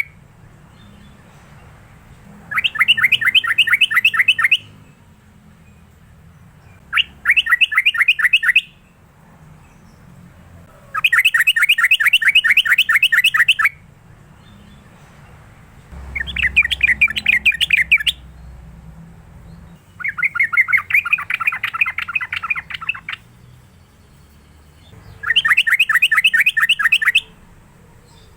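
Yellow-vented bulbul (trucukan) singing: six bursts of fast, repeated chattering notes, each about two seconds long, with short pauses between them.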